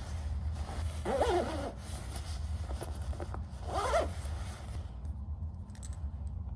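Zipper of a Columbia puffer jacket being pulled, in two short rasping strokes: one about a second in and another about four seconds in.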